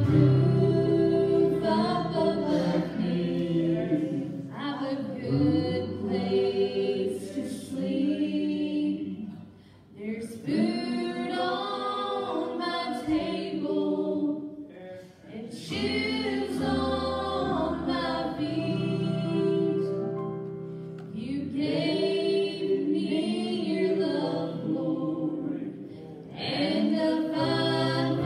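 A group of voices singing a gospel song together, led by a church praise band, with brief dips in the sound between sung lines.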